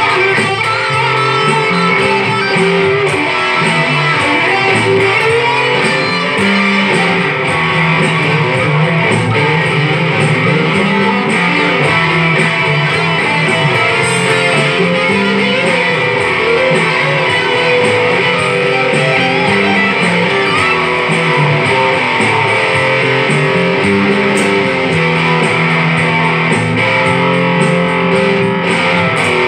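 Electric bass guitar played by hand, a bass line stepping from note to note, with strummed guitar music sounding alongside it.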